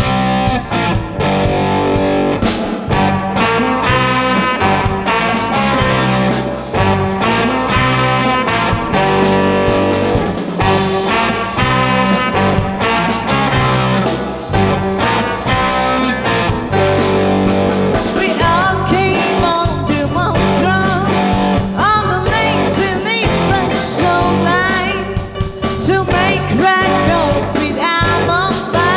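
Live small band playing: electric guitar, bass guitar, keyboard and drums. A woman's voice joins in singing over the band in the second half.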